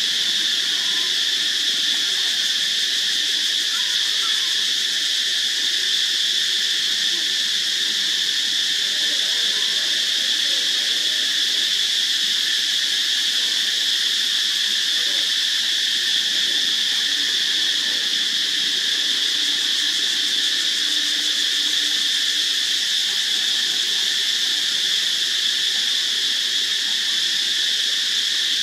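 Insect chorus: a steady, unbroken high-pitched buzzing drone that holds the same level throughout.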